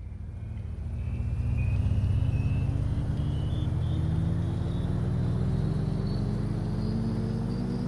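A vehicle accelerating: a low drone and a thin, higher whine both rise slowly in pitch, swelling over the first two seconds and then holding steady in loudness.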